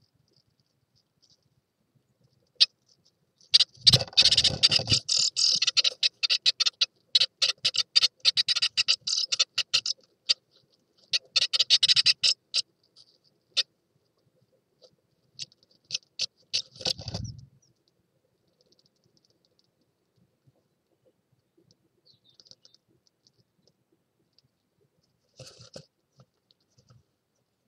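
Adult tits moving about in the nest cup inside a nest box, rustling and scratching the moss and hair around newly hatched chicks. The rustling comes in a dense spell from about four to twelve seconds in and a shorter one around sixteen to seventeen seconds, with faint scrapes near the end.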